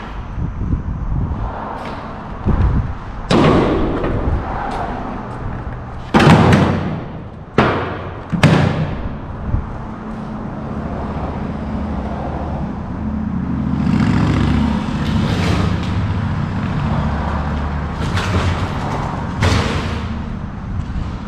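Several loud, short bursts of noise in the first half, then an engine running steadily, a little louder for a few seconds in the second half.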